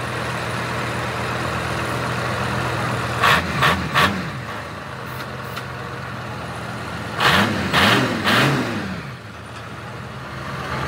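Mercedes-Benz truck's diesel engine idling steadily, revved in three quick blips about three seconds in and three more blips about seven seconds in, dropping back to idle each time.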